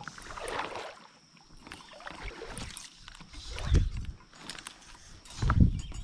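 Water sloshing and splashing in a few surges, the loudest two about two-thirds through and near the end.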